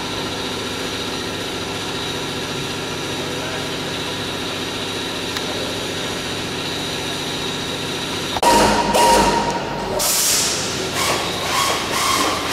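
A steady mechanical hum with several held tones. About two-thirds of the way in it gives way to louder, irregular clattering and knocking.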